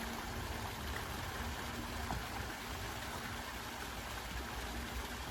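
Water from a pump-fed fountain splashing and trickling steadily, with a faint steady hum underneath.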